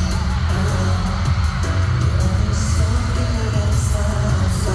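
Live K-pop concert music over an arena sound system: a male singer singing into a handheld microphone over a backing track with heavy bass, recorded on a phone in the audience.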